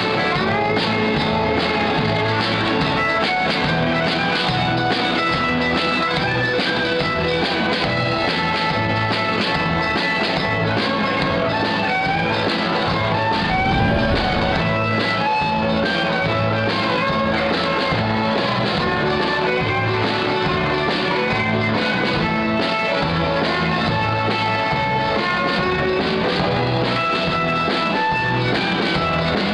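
Old-time Athabascan fiddle music: a fiddle tune over guitar accompaniment with a steady beat.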